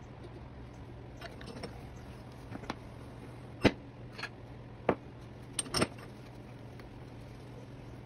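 A string of short, sharp knocks and clacks from wood, glass and metal being handled in a steel bench vise fitted with wooden jaw pads, about eight in all. The loudest comes about three and a half seconds in. A steady low hum runs underneath.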